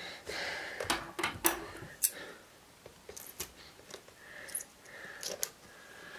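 Hands working at a tight-fitting camera box to pull it open: scattered sharp clicks and taps with soft rustling and scraping of the packaging.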